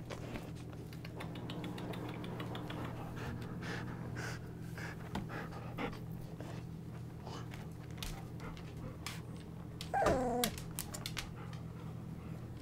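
25-day-old golden retriever puppies shuffling and snuffling against one another with small faint squeaks. About ten seconds in, one puppy gives a short whine that falls in pitch, the loudest sound.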